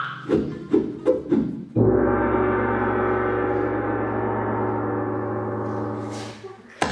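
A few short knocks, then a gong struck once about two seconds in, ringing on for about five seconds and fading away.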